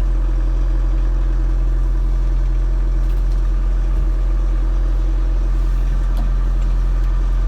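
Bobcat Toolcat 5600's 61 hp turbocharged Doosan diesel engine running steadily at an even speed.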